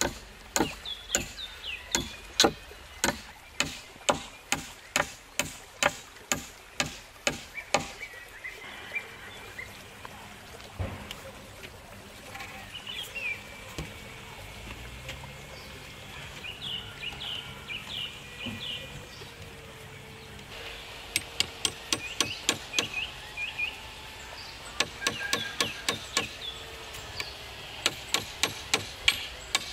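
Hand hammer driving nails into logs, steady blows about two a second, stopping about eight seconds in. Birds chirp in the quiet stretch, and the hammering starts again about 21 seconds in.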